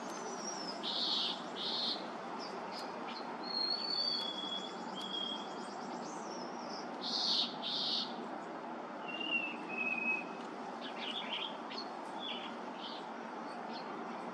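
Harris's sparrow singing clear, pure whistled notes held on one pitch, a pair of whistles about four and a half seconds in and a lower pair around nine and a half seconds. Louder paired chirps come about a second in and again around seven seconds, over steady background noise.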